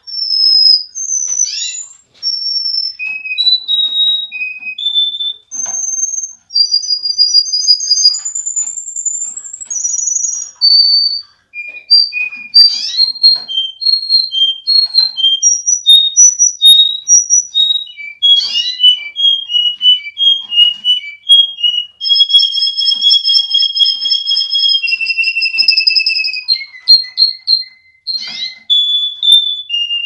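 Russian canary singing a long, continuous song of clear whistled notes, each phrase a quick series of repeated notes before jumping to a new pitch, with fast trills and a long, steady two-toned roll in the last third.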